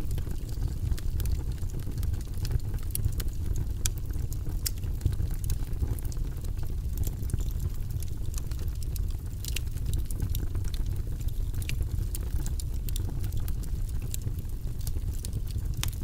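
Wood log fire burning in a fireplace: a steady low rumble of flame with frequent, irregular sharp crackles and pops from the burning logs.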